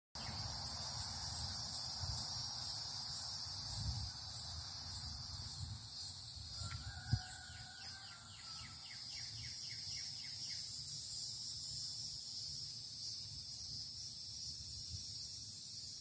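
Cicadas droning steadily at a high pitch, joined from about six to ten seconds in by a bird calling a quick run of short falling notes. A low rumble sits underneath.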